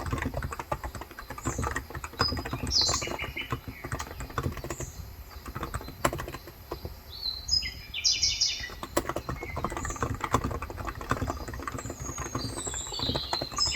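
Steady fast typing on a Cox Endeavour electro-capacitive (Topre-style) tenkeyless keyboard with 35 g switches, a dense run of keystrokes. Birds chirp in short bursts in the background, about three times.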